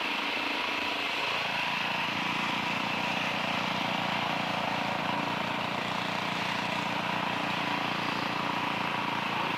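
Mechanical sheep-shearing handpiece running steadily as it cuts through fleece, with the steady hum of the shearing machine that drives it.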